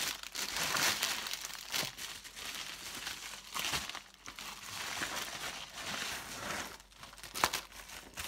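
Plastic packaging crinkling and rustling as a clear-plastic-wrapped bundle of small bags is slid out of a plastic mailer bag and handled, in uneven surges. A sharp click sounds near the end.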